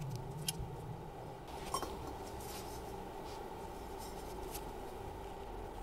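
Light clicks and rubbing of metal alternator parts being handled in gloved hands, the sharpest click about a second and a half in, over a steady low room hum.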